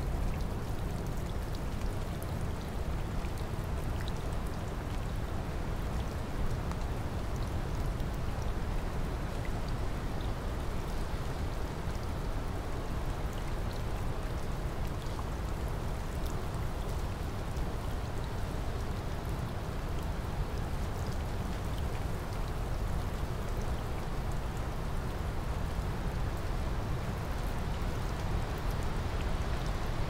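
Steady rain falling: an even hiss with a deep low rumble underneath and scattered single drops ticking.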